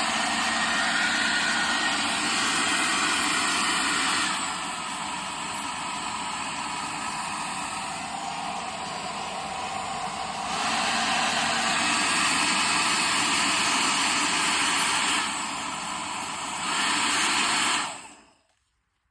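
Compact two-speed hair dryer running with a steady blowing rush. It is switched between its high and low speed several times: dropping about four seconds in, back up about halfway, down and up again briefly, then switched off near the end.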